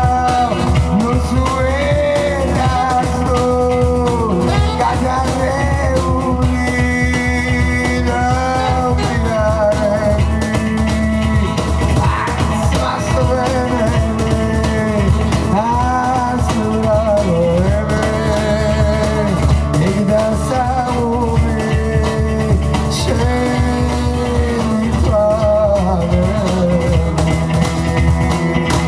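Live band music with a singing voice carrying a gliding melody over a steady, dense band accompaniment, at an even loud level.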